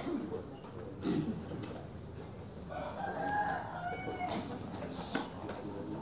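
A rooster crowing once: a single drawn-out call of about a second and a half, near the middle. A brief low vocal sound comes before it, about a second in.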